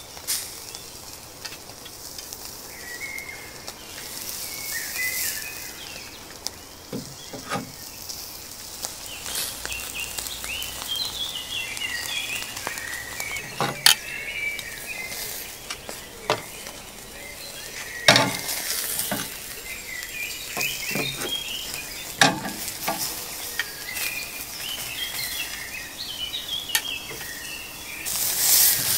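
Iberico pork presa steak sizzling on a hot charcoal grill grate, a steady hiss broken by sharp pops and crackles every few seconds.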